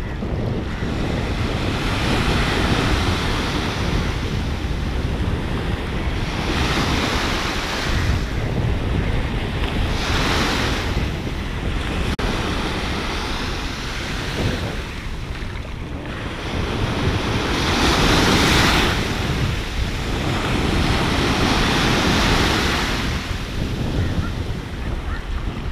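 Small waves breaking and washing in over shallow water, the hiss swelling and easing every few seconds, under steady wind buffeting on the microphone.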